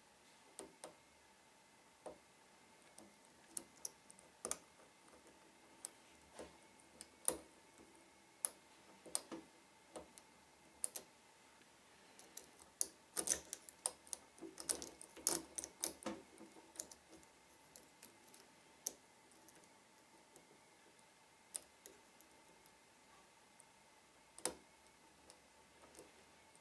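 Lock pick clicking and scraping against the pins inside a Trioving 5632 padlock: irregular small ticks, with a dense flurry of clicks about halfway through.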